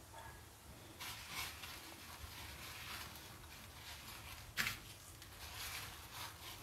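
Faint, intermittent rustling of dry breadcrumbs as a hand rolls and presses a coated egg ball into them, with one sharper click or tap about two-thirds of the way through.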